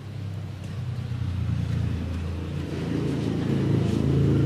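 A motor vehicle engine running with a steady low hum that slowly grows louder.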